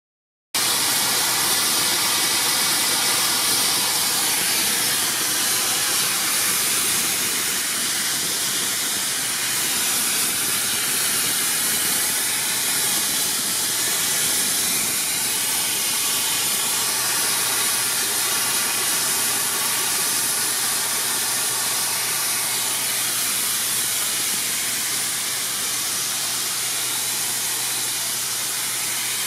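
Southern Railway Merchant Navy class steam locomotive Clan Line blowing off steam from the top of its boiler while standing: a loud, steady hiss that holds at one level throughout.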